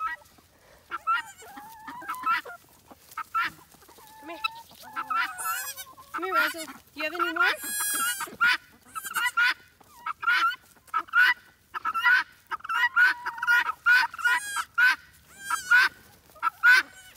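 Farm animals calling: many short pitched calls, several a second, with a few shriller ones in the middle.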